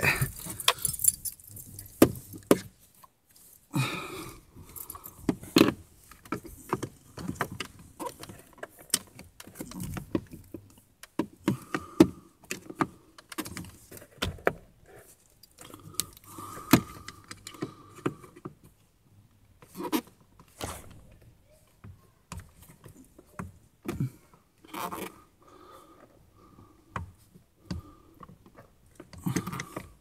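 Screwdriver probing in the back of a Ford Focus Mk2 steering wheel, giving irregular small metallic clicks, taps and scrapes as it feels for the spring-wire clip that holds the driver's airbag in place.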